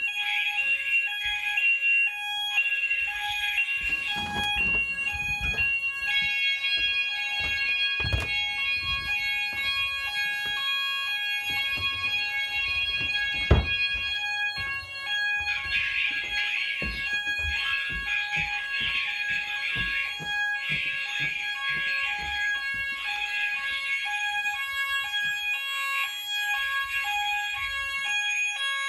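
Several sounders of an addressable fire alarm system sounding together in full evacuate alarm, their different tones overlapping: a pulsing two-tone pattern, a steady high tone and a warbling high tone. The warbling tone drops out about six seconds in and returns about halfway through. A single sharp thump comes about halfway through.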